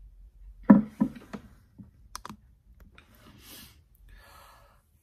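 Objects being handled on a wooden table make a few sharp knocks and clicks. The loudest two come less than a second in, and a short rustling follows near the end.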